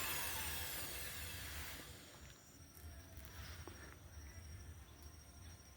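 Electric hand planer motor spinning down after being switched off, its whine falling in pitch and fading out over about two seconds. Faint insects chirp steadily afterwards.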